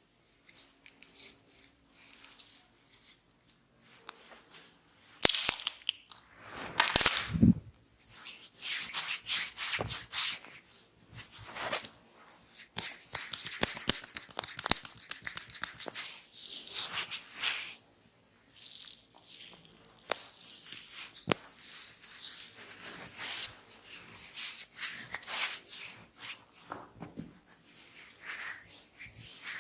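Hands rubbing and scrunching through hair and over the scalp in a head massage, broken by many sharp cracks and slaps, the loudest about five and seven seconds in.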